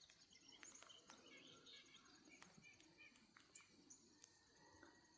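Faint outdoor birdsong: scattered small bird chirps with a thin, rapid high-pitched trill running through, and a few faint clicks.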